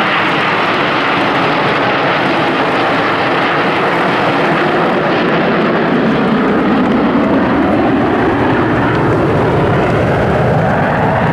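Formation of Aermacchi MB-339 PAN jet trainers flying past, their single turbojet engines making a loud, steady rushing roar. The sound deepens over the second half.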